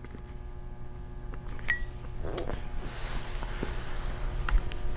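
A small laptop memory cover being worked into place by hand: a few light clicks and a soft scraping rub of its edges sliding against the laptop's internals, over a faint steady hum.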